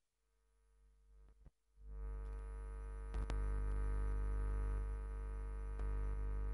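A sustained electronic drone of many steady tones at once, swelling up over the first two seconds and then holding steady, with a couple of faint clicks in the middle.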